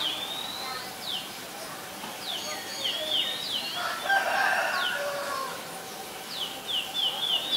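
Small wild birds calling with repeated short, high notes that slide downward, and a rooster crowing about four seconds in, the loudest sound.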